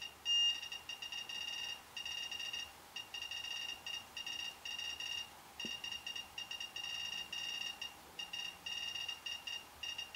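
SOEKS handheld radiation detector beeping in quick irregular runs, sounding its dangerous-radiation-background alarm at a reading of about 3.7 µSv/h from a rain-wipe sample. One louder, higher beep comes about half a second in.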